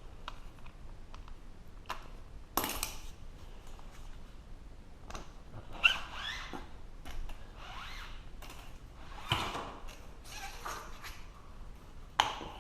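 Wire liner being worked loose and pulled out of a Hobart Handler 190 MIG gun's cable: scattered clicks and knocks with several short scraping slides, one with a squeak about six seconds in.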